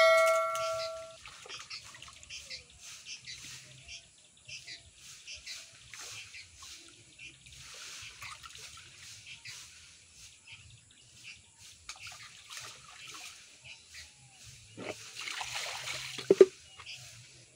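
A metal pail rings once as it is knocked, then water sloshes as leaves are washed by hand in it, with birds chirping. About fifteen seconds in, the water is poured out of the pail onto the ground in a splash, followed by a sharp clank of the pail.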